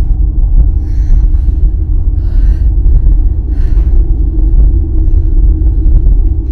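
Loud, steady low rumble with a faint held hum above it, and a woman's short breaths or gasps three times, about one, two and a half and nearly four seconds in.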